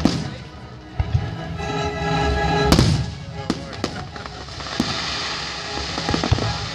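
Aerial fireworks shells bursting overhead: a series of sharp bangs about a second apart, the loudest about three seconds in, with a patter of small crackles near the end.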